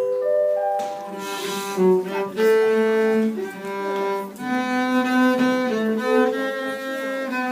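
Music on bowed string instruments, cello-like, playing sustained notes in two parts that change about every half second to a second.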